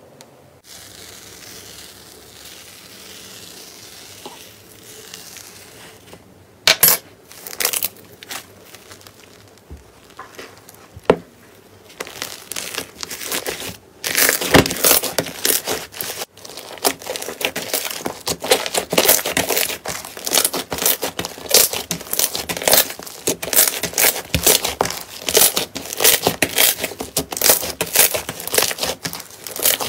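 Slime being squeezed, kneaded and stretched by hand. It is quiet at first, with a few scattered pops, then from about twelve seconds in gives a dense run of crackling and popping clicks.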